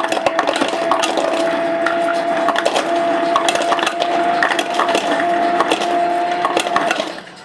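Root beer fizzing and crackling, with dense rapid crackles over a steady hum that stops suddenly near the end.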